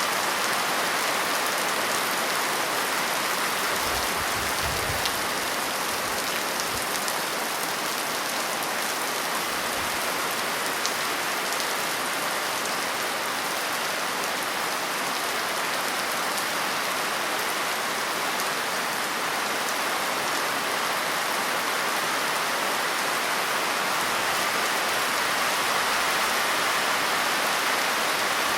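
Steady rain falling, an even, dense hiss of drops. A few faint low thumps sound about four to seven seconds in.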